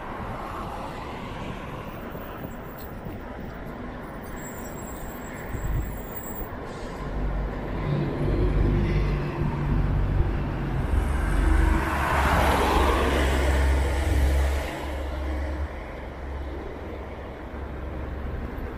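A motor vehicle passing close by on a street: a low engine rumble builds, is loudest about twelve seconds in with a rush of tyre and road noise, then falls back to steady traffic noise.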